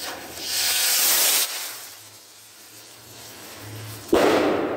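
World Class Fireworks 'Lite Em Up' skyrocket launching with a hiss that lasts about a second, then bursting in the air with a loud bang about four seconds in that fades away over about a second.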